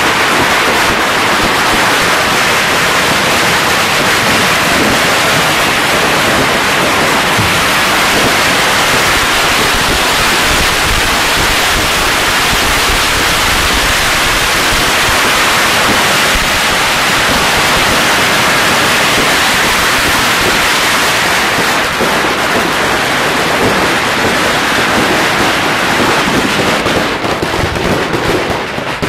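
A dense, unbroken barrage of firecrackers and fireworks exploding, a continuous loud crackle, thinning a little into more separate bangs near the end.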